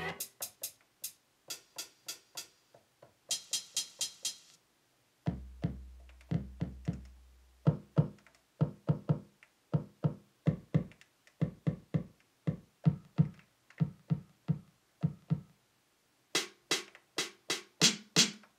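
Drum samples tapped out on the pads of an Akai MPC One sampler: single hits in short, uneven runs with brief stops, a quick run of high ticks about three seconds in, and a low held bass note about five seconds in. A denser run of hits starts near the end.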